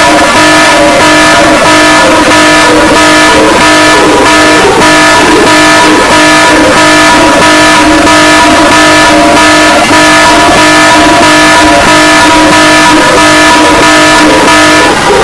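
Emergency alert system alarm tone, very loud and distorted: several steady pitches held together, with a regular pulsing of about two a second. The tones shift near the end.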